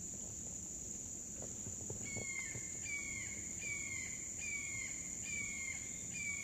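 Steady high insect drone, and from about two seconds in a hawk calling over and over, a short descending scream repeated a little more than once a second.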